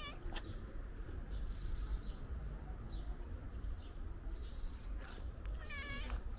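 Short bursts of rapid, high-pitched chirping, repeating about every three seconds, over a steady low background rumble. Near the end, the long-haired tabby-and-white cat gives a short meow.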